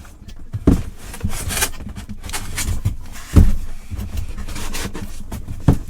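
A box being handled and slid about, with rubbing and scraping and three thumps: under a second in, about midway, and near the end.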